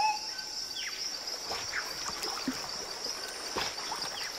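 Wetland ambience: a steady high-pitched insect chorus, with a few faint bird chirps over it.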